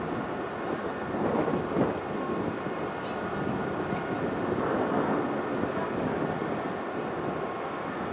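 The car ferry Oita's engines running as it berths alongside the quay: a steady mechanical noise that swells louder twice, mixed with wind buffeting the microphone.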